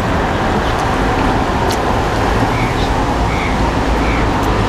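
Steady road traffic noise from cars passing on a busy street, with a single light click about a second and a half in.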